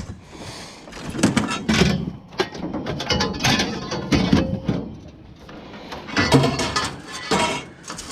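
Irregular knocks, clanks and rattles of objects being handled and moved, loudest about a second in and again around six seconds in.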